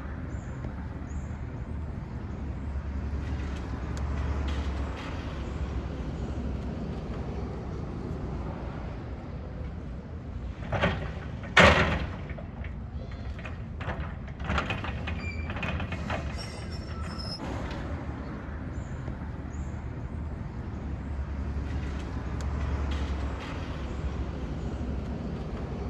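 Demolition excavator with a hydraulic shear attachment: its diesel engine running steadily, with sharp cracks and crunches as it breaks up the building, the two loudest about eleven seconds in.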